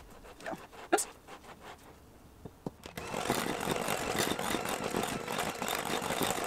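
A spatula scrapes and taps against a glass mixing bowl. About three seconds in, an electric hand mixer starts up and runs steadily, its beaters churning through thick gingerbread batter.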